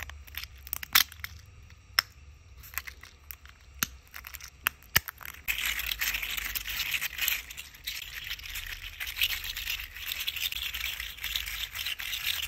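Plastic joints of a print-in-place articulated 3D-printed slug clicking sharply, one at a time, as it is bent by hand. From about five and a half seconds in, the clicks turn into a dense crackling rattle as the segments are twisted and rolled against each other.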